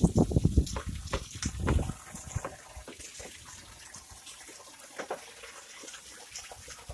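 Heavy rain pouring down, with a low rumbling in the first two seconds that then gives way to steady rain hiss and many small drips and splashes ticking close by.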